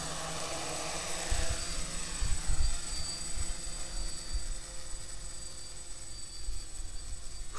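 A quadcopter's electric motors and propellers spin up as it lifts off the grass and climbs into a hover, with a steady high-pitched whine. Low buffeting hits the microphone between about one and three seconds in.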